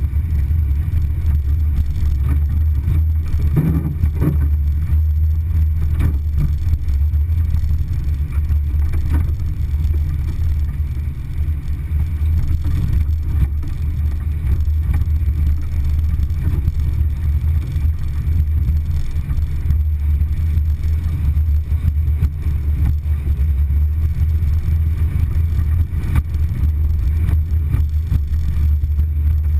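Steady low rumble of a vehicle driving along a rutted dirt trail, with a few knocks about four and six seconds in.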